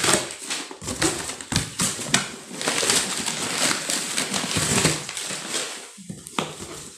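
Paper wrapping crinkling and rustling as it is pulled out of a cardboard box, with the box's cardboard flaps scraping and knocking as it is handled. The crackling is dense and continuous, with several sharper knocks, and it eases off near the end.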